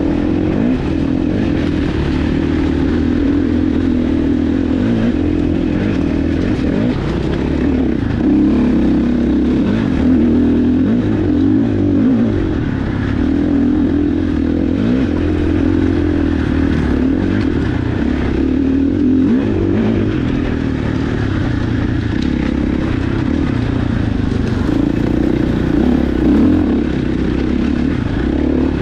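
Dirt bike engine running on a trail ride, its pitch rising and falling continually with the throttle, over a steady rushing noise.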